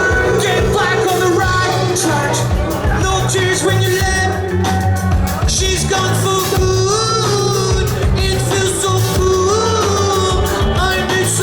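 Live rock band playing loudly, with electric guitars, a driving bass and drums, and a lead vocal singing over them.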